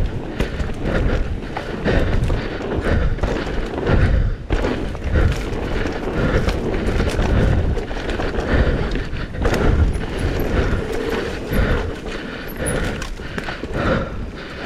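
Propain Rage 3 CF downhill mountain bike being ridden over rough ground: a steady rumble with many quick knocks and thuds from the wheels and frame hitting bumps.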